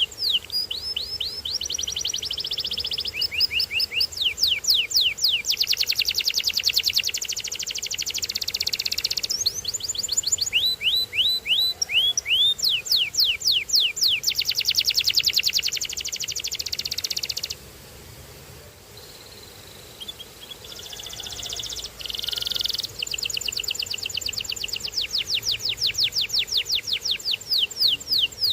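Canary singing a long song of rapid trills: strings of quick, repeated downward-sweeping notes that change phrase every few seconds, with a short quieter lull about two-thirds of the way through.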